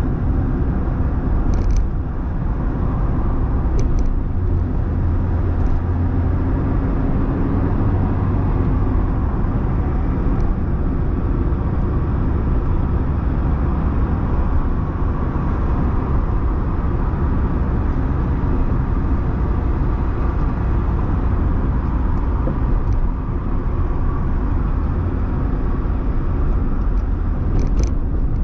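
Steady car road noise heard inside the cabin while driving along a city street: a low rumble of engine and tyres on asphalt. A few light clicks stand out over it, about two and four seconds in and again near the end.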